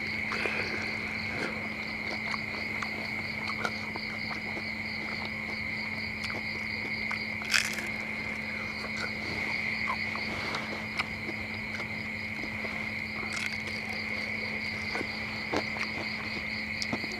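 Crickets chirping in a steady, continuous night chorus, with a fast pulsing trill over a constant high buzz. Crispy fried frog being bitten and chewed gives scattered crunches, two of them sharp, about halfway through and near the end.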